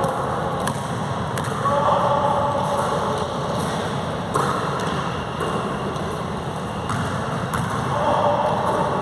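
Basketballs bouncing on an indoor court floor: several separate sharp bounces spaced a second or so apart, echoing in the gym.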